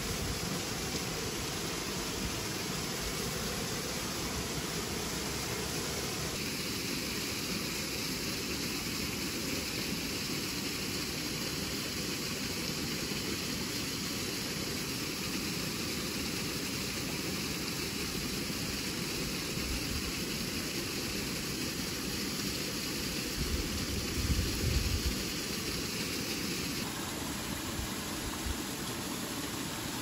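Waterfall rushing, a steady, even hiss of falling water that shifts slightly in tone twice. A few brief low bumps come about three-quarters of the way through.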